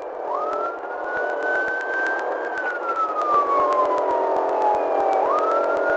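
Police car siren on wail: the pitch sweeps up quickly, holds, slides slowly down over a few seconds, then sweeps up again near the end, over a steady lower drone.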